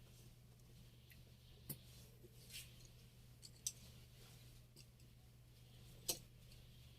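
Near silence over a steady low hum, with three faint sharp clicks spread through it and a soft brushing sound between the first two.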